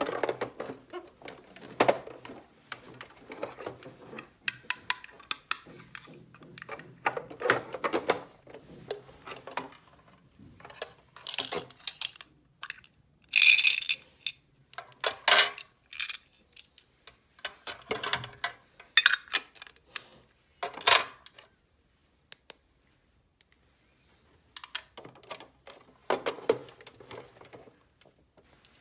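Small plastic toy pieces clicking and clattering as they are handled and set down, in irregular bursts with short pauses and a quiet stretch about two-thirds through.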